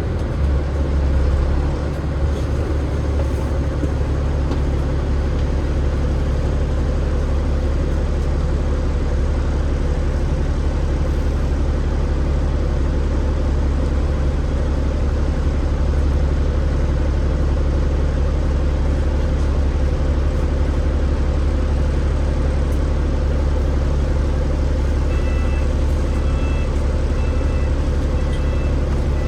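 Alexander Dennis Enviro500 MMC double-decker bus with a Cummins ISL8.9 diesel engine and ZF EcoLife automatic gearbox running steadily, a strong even low drone. Near the end, a short two-tone beep repeats about once a second.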